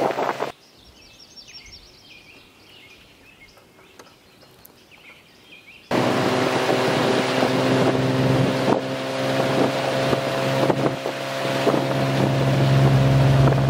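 Small outboard motor driving an aluminium fishing boat, a steady drone buffeted by wind on the microphone. The drone cuts off abruptly about half a second in, leaving a quiet stretch with a small bird chirping, then comes back loud about six seconds in.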